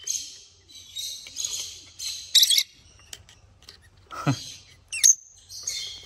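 Lovebirds chirping in short, scratchy bursts, with a lower falling note about four seconds in.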